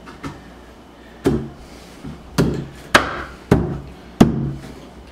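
A fist pounding the wooden top rail of a bunk bed headboard down onto its slats: a series of sharp wooden knocks, about six, the louder ones roughly half a second to a second apart.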